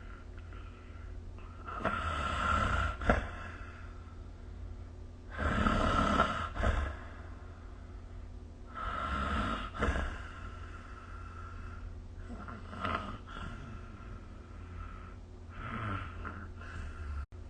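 Someone snoring in sleep: five snores about three and a half seconds apart, the fourth weaker than the rest, over a steady low hum.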